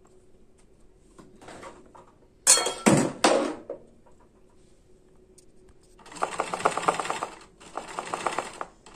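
A few sharp snips of scissors trimming thread, then a Janome 813 sewing machine stitching in two short runs of rapid, even needle strokes, each about a second long, as the hoop is guided for freehand embroidery.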